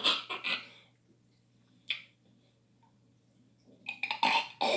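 A man making gagging, hacking retch noises in imitation of a cat coughing up a hairball, in short bursts: a few at the start, one about two seconds in and a loud run near the end. It is heard through a TV's speaker.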